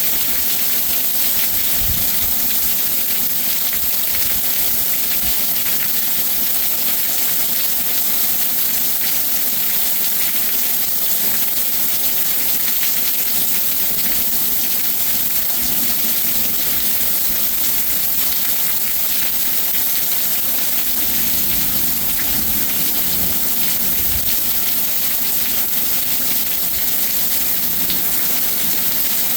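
Heavy rain falling steadily, an even hiss, with a few brief low thumps.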